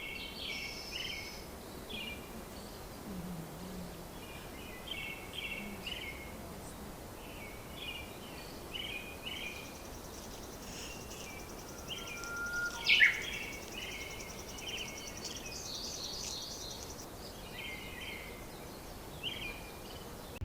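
Birds chirping in short repeated calls over a steady outdoor background hiss, with a rapid high trill running through the middle stretch and one loud, sharp call that sweeps downward about halfway through.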